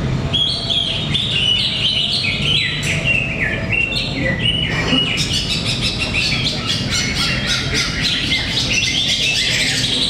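Several caged green leafbirds (cucak ijo) singing at once in competition, a dense, overlapping run of quick chattering and whistled phrases that grows busier about halfway through, over a steady low hum.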